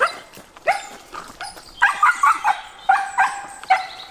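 A dog barking in a quick series of short, high-pitched yelps, about eight in all, some coming in close pairs.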